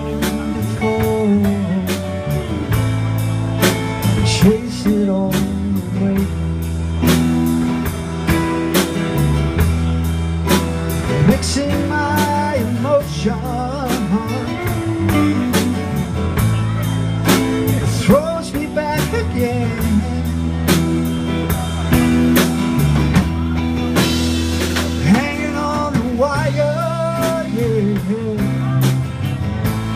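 Live band playing a song: acoustic and electric guitars over a drum kit keeping a steady beat with cymbals, and a man singing the lead vocal in stretches.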